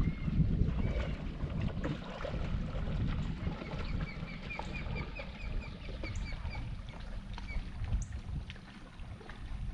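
Low rumble of wind and water at the shoreline, with a bird calling a quick series of short chirps, about four a second, from about four seconds in until past seven seconds.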